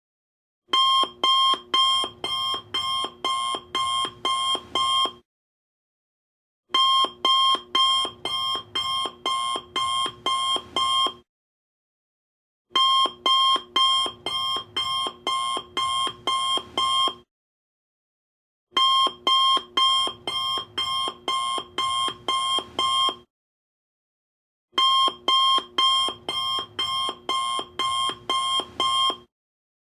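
Alarm clock going off in five bursts, each of about ten rapid high-pitched pulses, with a pause of about a second and a half between bursts.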